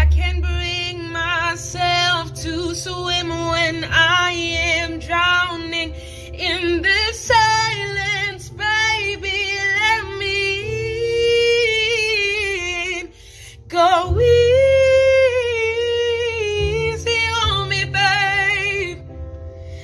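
A woman singing solo, a soulful melody with runs and vibrato. A long held note in the middle, a short break, then a loud held note about fourteen seconds in.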